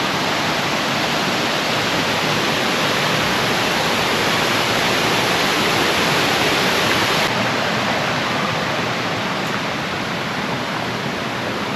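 Waterfall rushing steadily: an even roar of falling and cascading water.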